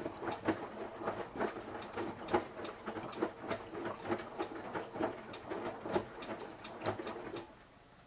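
Samsung Eco Bubble front-loading washing machine tumbling a load of clothes in its drum: an irregular run of knocks and slaps, several a second, that stops near the end.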